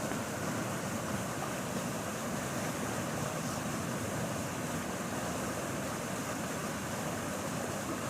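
Steady rushing roar of a flooded, overflowing creek running in rapids.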